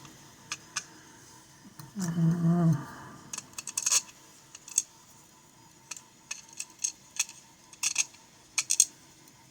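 Small lock pins and tools being handled while a pin-tumbler lock is gutted, giving a scatter of light metallic clicks and ticks over several seconds. A short hummed murmur from a voice comes about two seconds in.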